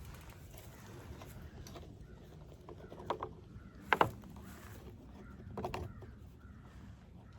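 A few sharp clicks and knocks from a backpack blower's plastic parts and tools being handled as it is taken apart, three seconds in, at four seconds and again near six seconds, over a low background.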